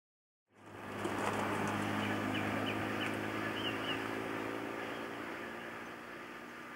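Birds chirping several times over a steady low hum of outdoor background noise.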